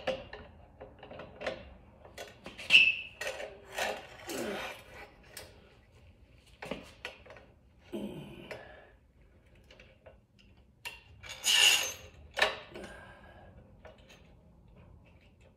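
Metal knocks, clicks and scrapes of hand work on a BSA A65 motorcycle front fork as a threaded fork-pulling tool is worked on the fork tube, with two sharper metallic clanks that ring briefly, about three seconds in and about twelve seconds in.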